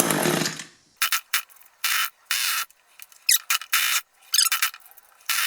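An Echo hedge trimmer's two-stroke engine runs on half choke and dies about half a second in; it does not seem to be pulling fuel. Then comes a string of short, squishy, squeaky air-and-fuel sounds, typical of the primer bulb being pressed over and over.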